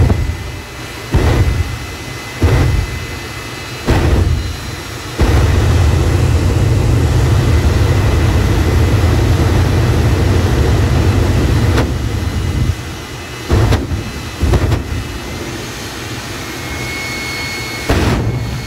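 Jet truck's jet engine running, fired into short afterburner blasts about once a second and a half, then held in one long afterburner burn of about seven seconds, then a few more short blasts.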